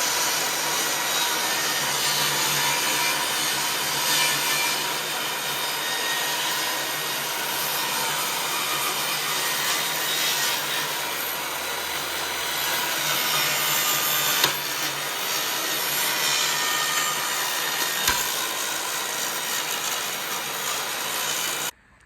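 Electric power saw running steadily while cutting along a wooden board. It stops abruptly near the end.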